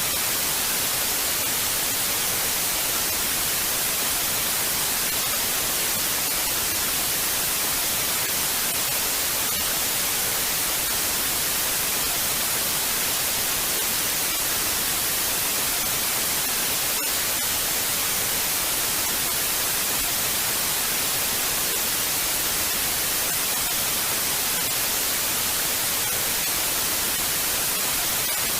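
Television static: a steady, unbroken hiss, strongest in the high end.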